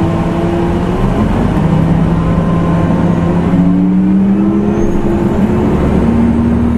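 Nissan Diesel CNG city bus (KL-UA272KAM) running under way. Its engine pitch climbs slowly for several seconds and falls away suddenly near the end.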